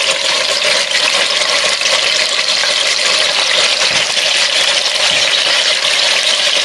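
Seasoned beef short ribs searing in hot oil in a Dutch oven: a steady sizzle.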